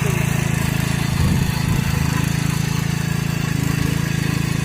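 Small petrol engine running steadily at an even speed.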